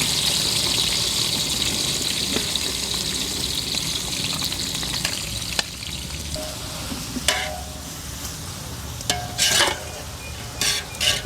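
Sliced onions frying in hot oil with whole spices, sizzling loudly at first and slowly easing as they cook. In the second half a few short knocks with a brief ring, like a metal ladle stirring against the pot.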